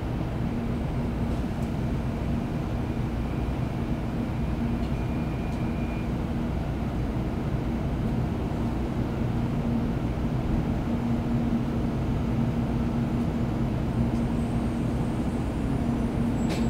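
Cabin noise inside a Kyushu Shinkansen train pulling into a station: a steady low running rumble with a constant low hum, and a faint high whistle near the end.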